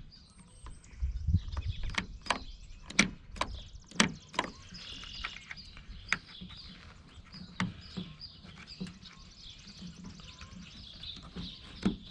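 Irregular clicks, taps and knocks of hand tools and small metal parts being handled while a carburetor and its choke linkage are fitted on a Husqvarna 350 chainsaw, with a low thud about a second in.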